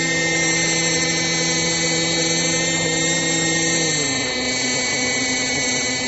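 Radio-controlled Chinook tandem-rotor model helicopter running on the ground with a steady high-pitched whine. Its lower note falls in pitch about four seconds in, as the motor slows.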